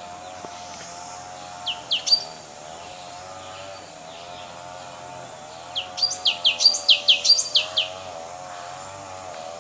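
A songbird chirping: three sharp high notes about two seconds in, then a quick run of about a dozen short chirps a few seconds later. A steady, wavering low drone runs underneath.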